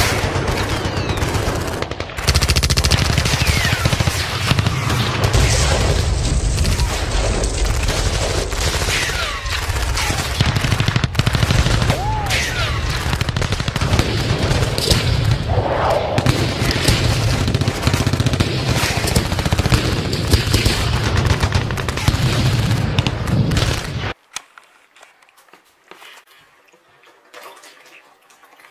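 Large stainless steel stockpot of pasta water at a hard rolling boil on a gas burner: a loud, dense crackle of bursting bubbles over a steady low rumble. It cuts off suddenly about 24 seconds in, leaving only faint scattered sounds.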